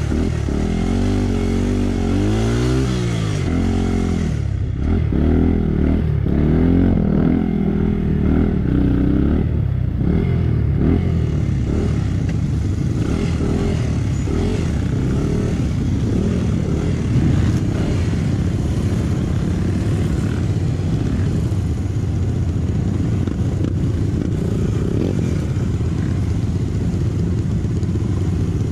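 Off-road trail motorcycle engine running under varying throttle: the revs swing up and down repeatedly for about the first ten seconds, then settle into a rougher, more even drone.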